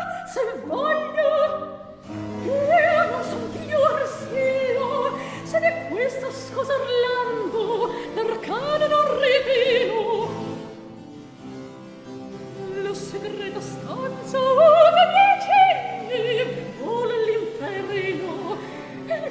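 Baroque opera aria: a solo soprano singing with wide vibrato and quick ornamented runs over a period-instrument string orchestra with harpsichord continuo.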